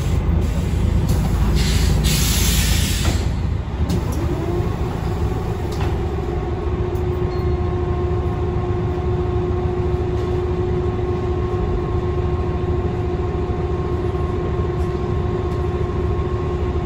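Inside a Scania L113CRL bus: a steady low rumble, with a loud hiss of air in the first few seconds. Then a whine from the bus's rear-mounted diesel engine and driveline rises in pitch and holds steady.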